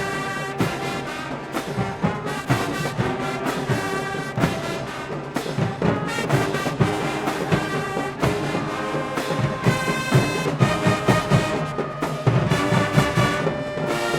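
High school marching band playing: the brass section sounds full chords over steady drum hits.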